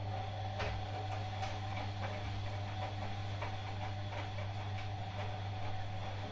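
Bosch Maxx 7 washing machine running mid-cycle: a steady low motor hum with faint scattered clicks.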